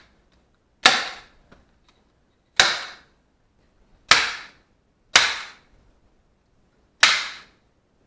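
Five sharp bangs about one to two seconds apart, each dying away quickly: fasteners being driven into the wooden couch frame to fix a reinforcing piece of 2x4.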